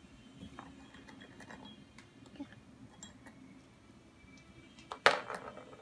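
Light scattered clicks and taps of small candy toppings and wafer sticks being handled and set onto paper cups of slush on a plastic tray, then one sharp clatter with a short ring about five seconds in.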